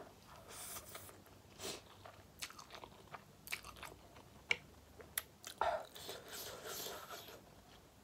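A person chewing and biting food close to the microphone, in a string of short wet mouth clicks and brief smacking sounds.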